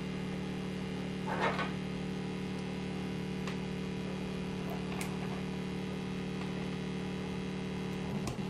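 Square-wave oscillators built on a 40106 hex Schmitt-trigger inverter chip, droning steadily at a low buzzy pitch. A scratchy crackle comes about a second and a half in and a couple of sharp clicks follow as the jacks and cables are handled. Near the end the tone starts to pulse rhythmically.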